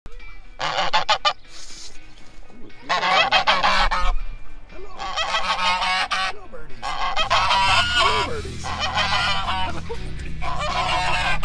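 Emus pecking and rubbing at the camera's microphone, giving bursts of sharp tapping knocks, mixed with repeated bird calls that waver in pitch.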